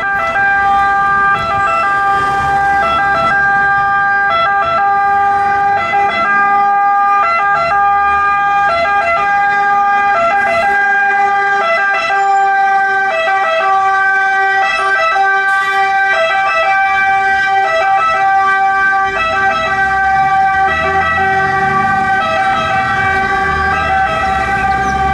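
Italian fire engine's siren sounding continuously: a loud steady pitched tone broken by brief, regularly repeating blips. Engine and road rumble builds in the second half as the truck draws closer.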